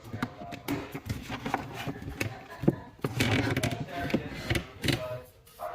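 Irregular clicks, taps and rustling of hands handling an electrical outlet, its wires and hand tools.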